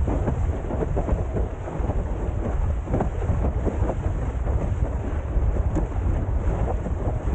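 Heavy wind rumble on the microphone over water rushing and splashing against a Windsurfer LT sailboard as it sails through choppy sea.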